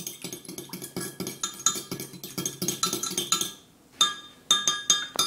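A metal fork stirring borax into water in a Pyrex glass measuring cup, clinking rapidly against the glass with a ringing tone. The clinking stops briefly a little before four seconds in, then starts again.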